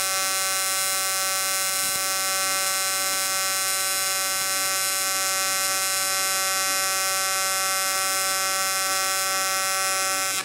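AC TIG welding arc on aluminum from an HTP Invertig 221, giving a steady electric buzz.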